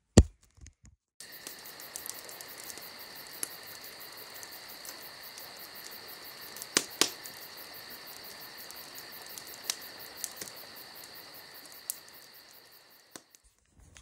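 A sharp knock right at the start, then a steady high-pitched chorus of night insects chirping, with a few faint clicks through it; it fades and stops shortly before the end.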